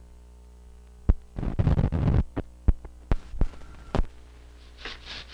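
Steady mains hum of an old film soundtrack, then a sharp pop and a short burst of noise about a second in. Hard-soled shoes then step several times on a hallway floor, and near the end a scrub brush swishes back and forth on the floor in quick strokes.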